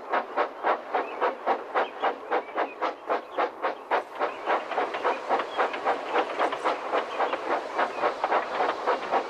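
Steam locomotive chuffing steadily at about four beats a second, each exhaust beat a sharp puff. From about halfway through, a continuous steam hiss fills in between the beats.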